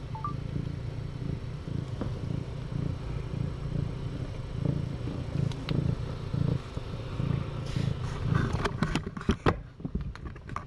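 Domestic cat purring steadily, a low pulsing rumble, with a short run of clicks and knocks near the end.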